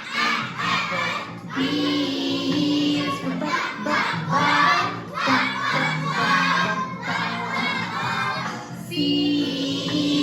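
A group of children loudly singing and chanting along to a phonics alphabet song, over background music with held notes.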